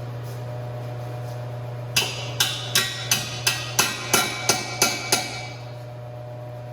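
About ten hammer blows on metal, roughly three a second, starting about two seconds in, each ringing briefly. A steady low hum runs underneath.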